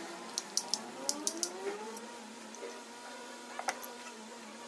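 Small sharp metallic clicks and taps of disassembled alternator parts being handled and turned over in the hands, a quick cluster early on and a pair about three and a half seconds in.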